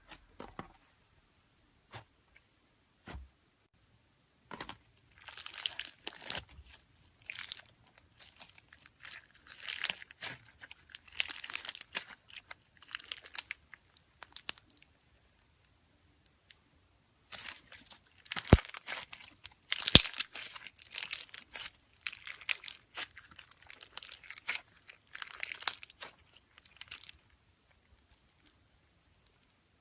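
Slime being squeezed and worked by hand, giving dense runs of fast crackles and pops in two long stretches with a short pause between, after a few single taps.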